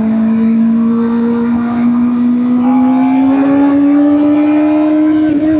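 Kawasaki ZX-4RR's inline-four engine through a Scorpion slip-on exhaust, pulling steadily under way with its pitch rising slowly, then a brief dip near the end.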